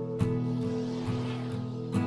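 Background music: strummed acoustic guitar with a steady bass line.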